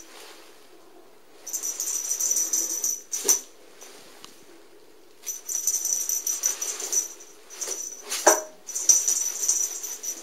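Feather cat toy rustling in two bursts as it is swished around and batted by cats; the second burst starts about five seconds in. A brief sharp sound comes about a second and a half into the first burst, and a louder one about eight seconds in.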